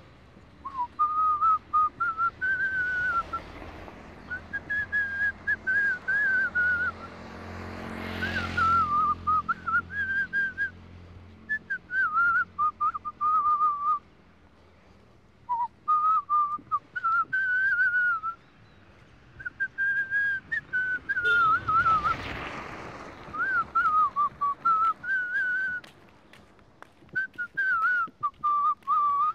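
A person whistling a wandering melody in short phrases with brief pauses. A rushing noise swells up and dies away twice, about eight seconds in and again about twenty-two seconds in.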